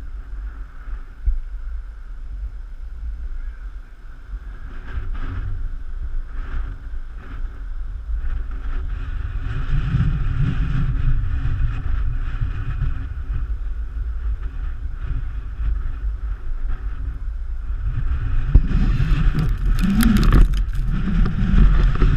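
Strong wind buffeting the microphone in a windstorm, a steady deep rumble with gusts, over traffic passing on the highway. It grows louder towards the end, with a few knocks and rustles as the camera is moved.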